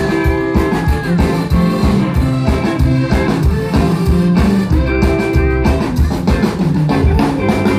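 Live reggae band playing without vocals: drum kit, bass, electric guitar and keyboards, with a steady beat.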